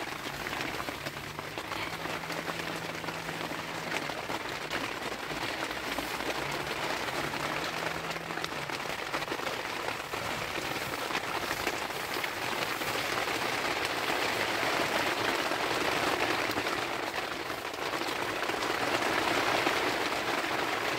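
Heavy rain falling on the fabric of a tent, a steady hiss of drops with many fine patters, getting louder in the second half.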